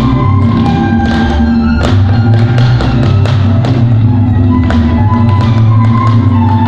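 Instrumental dance music: sustained pitched tones under a run of quick, bell-like percussive strikes.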